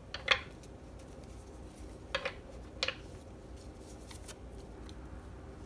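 A few short, crisp snaps and slides of tarot cards being handled and drawn from the deck, over a faint low hum.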